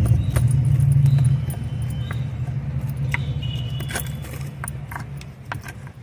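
Small metal hand cultivator scraping and clicking in potting soil as it loosens the earth. A low rumble is loudest in the first second and a half, then fades away.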